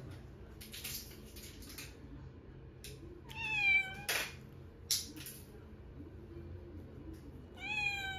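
Munchkin kitten meowing twice, a few seconds apart, each call short and falling in pitch. A sharp click comes just after the first meow, and there is some soft rustling of handling near the start.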